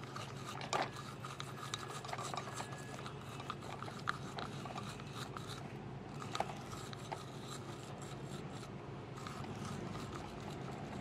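Rough, continuous scrubbing of an abrasive against the inside of a power-window motor's steel housing, sanding off rust, with a few sharp knocks.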